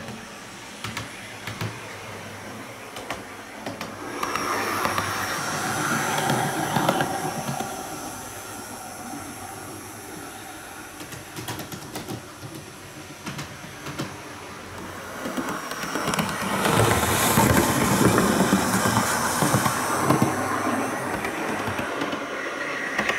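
Model railmotor (IDR Models Victorian Railways DERM) running laps on the track, its electric motor whirring and its wheels clicking on the rails. The sound grows louder as it passes close by, about five seconds in and again from about sixteen to twenty-one seconds.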